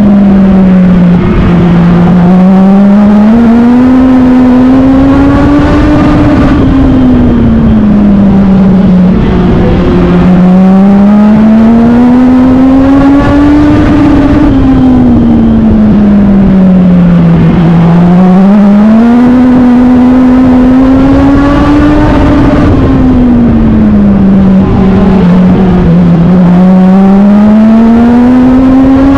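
Legend car's Yamaha motorcycle engine at racing speed, heard from inside the car. The revs climb along each straightaway and drop into each turn, in a regular rise and fall about every eight seconds, over heavy wind and road noise.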